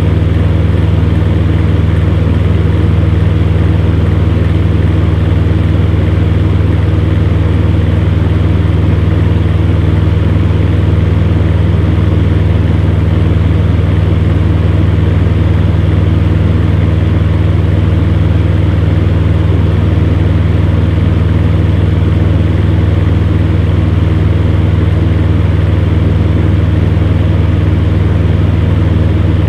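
Electric fan heater running: a steady low motor hum with a few fixed higher tones over an even rush of blown air.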